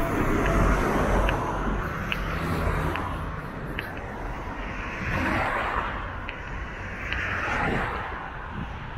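Street traffic: a vehicle's engine rumbles close by for the first few seconds, then two more vehicles pass with a swell of tyre and engine noise, about five and seven seconds in.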